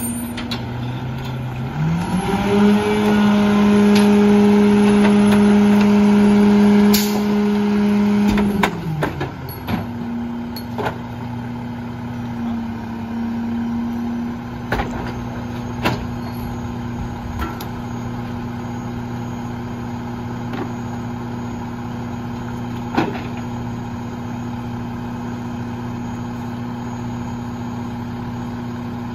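Heil 5000 rear-loader garbage truck's engine idling, then speeding up about two seconds in to a steady higher speed held for about six seconds, then dropping back to idle. Over the idle come scattered clunks and bangs as bulk items are thrown into the hopper.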